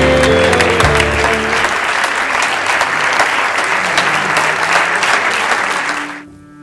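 Theatre audience applauding, with music that fades out within the first second and a half. The applause cuts off suddenly about six seconds in, and quiet string music begins.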